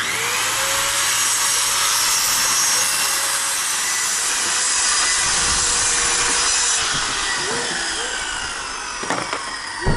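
Handheld electric circular saw cutting through a wooden board. The motor starts abruptly and runs loud and steady through the cut, then eases off and falls in pitch as the blade winds down, with a sharp knock just before the end.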